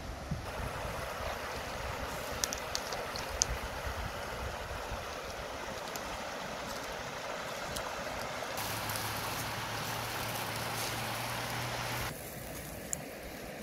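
Shallow river water rushing over stones in a steady hiss, with a few sharp clicks a few seconds in and a low hum joining in the second half. The water sound drops away suddenly near the end.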